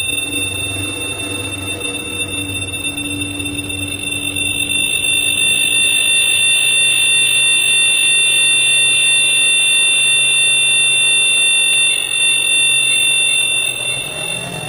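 Experimental electronic music: several steady high-pitched tones held like an alarm over a hissing wash, with a low pulsing drone underneath, growing louder about five seconds in.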